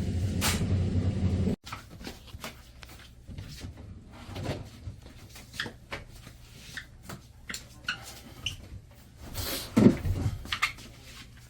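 A drum washing machine running with a loud, steady low rumble, the noise of a failing drum bearing, which cuts off abruptly after about a second and a half. Then come scattered light clicks and knocks of handling, with one louder knock near the end.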